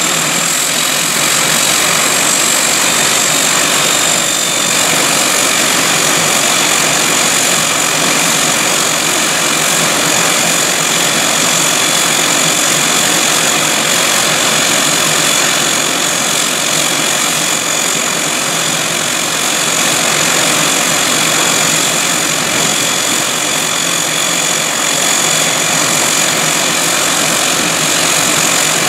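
Embraer 120 Brasilia's turboprop engine running steadily at ground idle with its propeller turning: a loud, even whine with high-pitched tones over a broad rush of noise.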